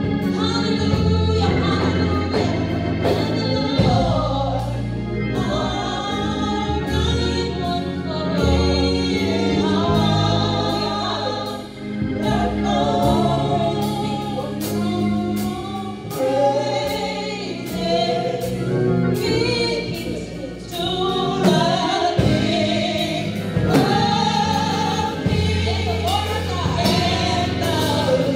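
Gospel song sung by a choir over a band, with steady low bass notes and a regular beat.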